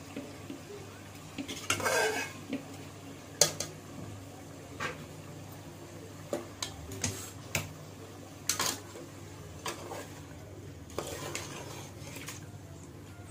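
A metal spoon stirring chicken pieces in a stainless steel pot, with irregular clinks and scrapes of metal on metal against a steady low hum.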